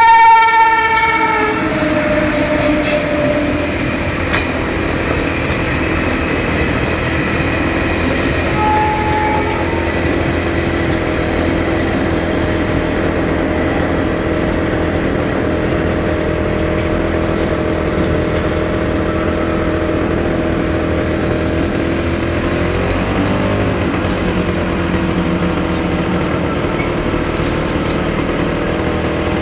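Indian Railways WAP-4 electric locomotive's horn sounds a long note that cuts off about a second in. The slowly crawling train then passes with a steady rumble of wheels on rail and a constant drone, the express's coaches rolling by.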